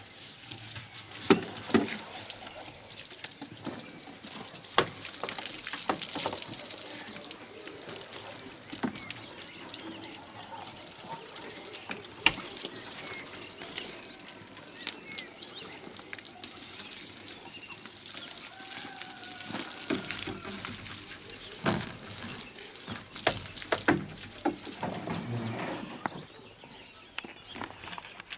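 Water from a hose spraying and splashing over a tractor's bodywork, a steady hiss broken by scattered sharp knocks, the loudest about a second in and again near five seconds.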